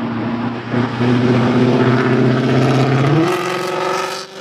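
Motor vehicle engine running nearby, a steady hum that rises in pitch about three seconds in as it accelerates.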